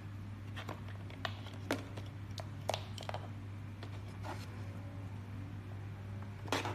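A steady low electrical hum, with light clicks and taps scattered irregularly through it, the loudest just before the end.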